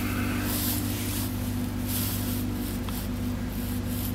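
Steady low mechanical hum under a hiss, with a few soft rustles.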